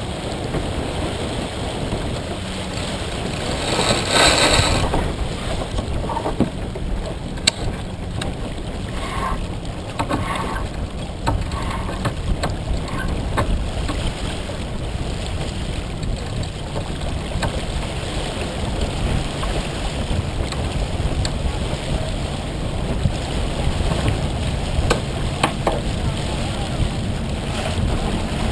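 Wind blowing across the microphone and water rushing along the hull of a sailboat under sail, with a louder rush of spray about four seconds in and a few sharp knocks.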